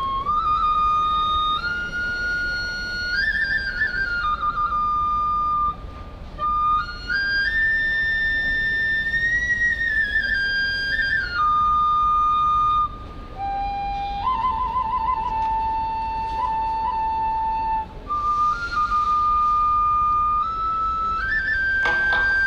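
Solo Japanese bamboo transverse flute (fue) of a kagura ensemble playing a slow melody of long held high notes with quick trilled ornaments, in four phrases separated by short breaks.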